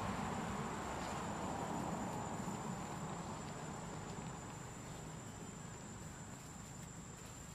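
Insects droning with one steady high-pitched note, over low background noise that slowly fades.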